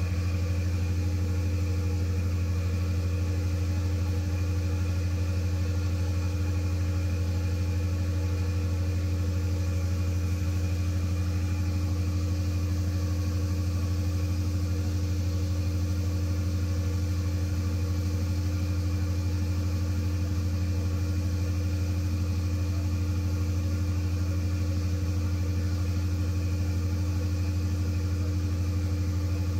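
Large natural gas generator engine running steadily under a 200 kW load, a deep, unchanging drone.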